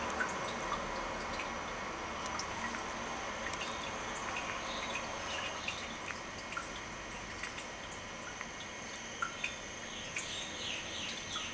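Quiet indoor room tone: a steady hiss with a faint high whine, scattered small ticks and clicks, and a brief run of quick faint chirps about ten seconds in.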